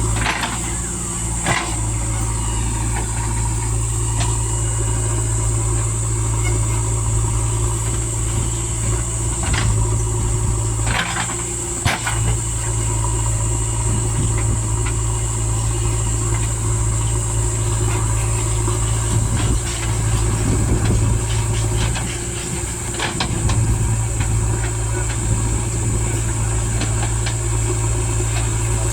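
Diesel engine of a JCB 3DX backhoe loader running steadily while it works, with a few sharp knocks, one near the start and two more around ten and twelve seconds in.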